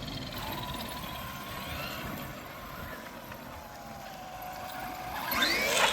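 Electric RC car motor whining faintly as the car runs, its pitch slowly falling, then a sharp rising whine near the end as the car is given hard throttle.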